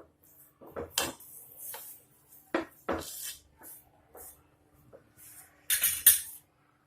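Metal dishes and utensils clinking and knocking: a handful of separate knocks, the loudest a close pair near the end.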